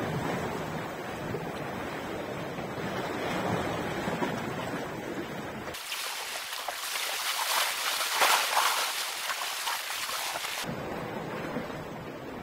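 Sea waves washing against a rocky shore, with wind rumbling on the microphone. About six seconds in, the low rumble cuts out abruptly for some five seconds, leaving a high hiss, then comes back.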